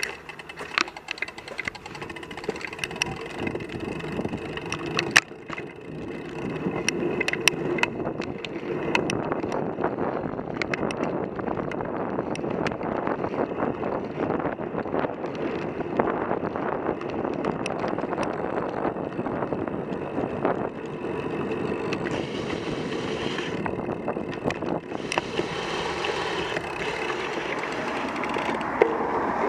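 Road bike being ridden, heard through a handlebar-mounted action camera: sharp knocks and rattles over the first several seconds, then a steady rumble of tyre and road noise with wind.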